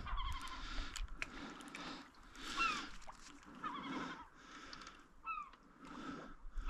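Seabirds calling: short cries that fall in pitch, repeated every second or so, over a faint outdoor background.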